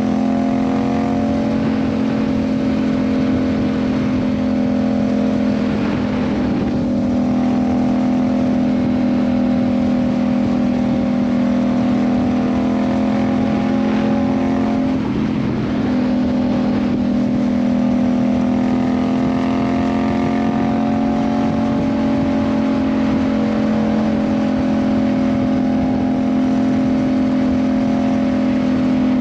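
Yamaha MT-07's 689 cc parallel-twin engine under way through an Ixil aftermarket exhaust, at fairly steady revs with a brief dip about six seconds in and a short break around fifteen seconds in, as on a gear change or roll-off, before the revs climb again. Wind rush runs underneath.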